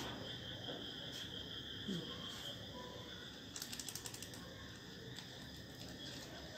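Faint steady high-pitched trill, with a quick run of soft clicks a little past halfway as hands in rubber gloves are pressed and rubbed together.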